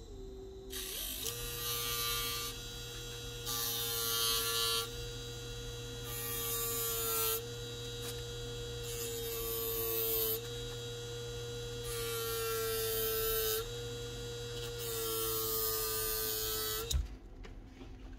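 Electric drill running with an abrasive bit, smoothing down plastic on a drill's fan and rotor assembly. A grinding hiss comes and goes in passes of one to two seconds as the bit bears on the plastic, while the motor's hum shifts slightly with the load. The drill stops near the end.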